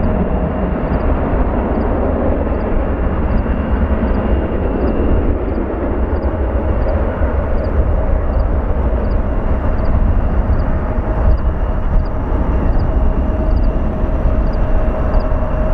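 Jet airliner engines running, a steady loud rumble with a steady whine held through it.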